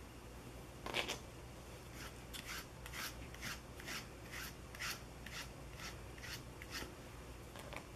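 A run of short rasping strokes through a small dog's fur, about two a second, as the coat is groomed by hand; the first stroke, about a second in, is the loudest.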